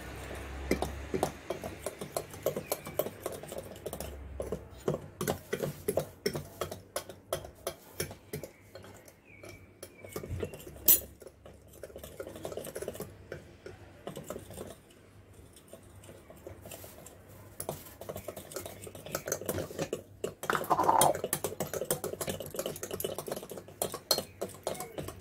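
A metal whisk beating cake batter by hand in a ribbed glass bowl, clinking and scraping against the glass in quick irregular strokes. There is one sharper clink about midway.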